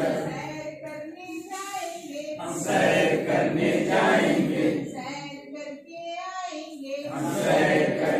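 A group of men and women singing a Hindi finger-dance action song together. The singing thins to fewer voices about five seconds in, then the full group comes back in near the end.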